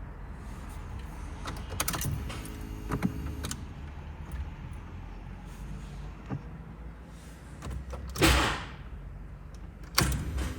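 Scattered clicks and knocks of things being handled, with one brief loud rush of noise about eight seconds in.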